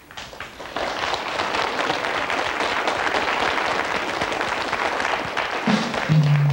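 Studio audience applauding, building up over the first second and then holding steady. Near the end a band starts playing, with low bass notes coming in under the clapping.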